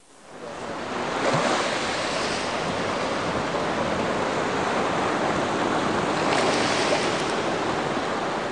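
Ocean surf: a steady wash of breaking waves that fades in over the first second, with a bigger wave swelling about a second in and again near the end.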